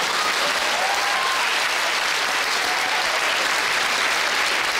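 Large theatre audience clapping and laughing: dense, steady applause, with a few laughing or whooping voices over it in the first second or two.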